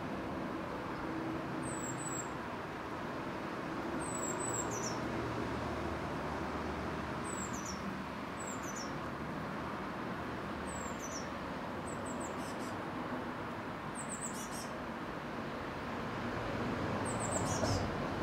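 A small bird giving short, thin, very high calls that slide downward, repeated every second or two over a steady background hiss and low hum.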